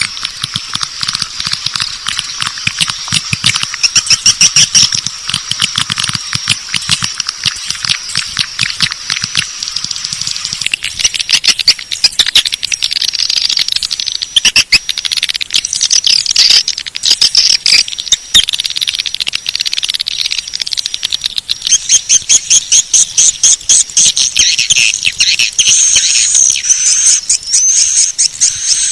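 Swiftlet call track: the dense, rapid clicking chatter and high twittering chirps of edible-nest swiftlets, used as lure audio to draw the birds into a swiftlet house. About two-thirds of the way through the chirps become a faster, evenly spaced run, with a few rising whistles near the end.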